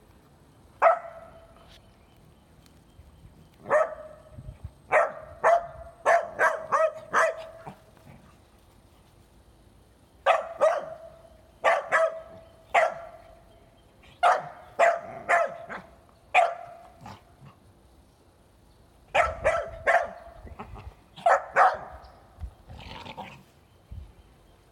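A small dog barking in short, sharp barks, singly and in quick runs of several, with pauses of a few seconds between the bursts, as it squabbles with another dog over a bone.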